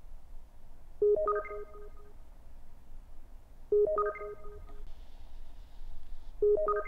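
Electronic alert tone, like a phone ringtone: a short run of rising notes repeating about every two and a half seconds, three times.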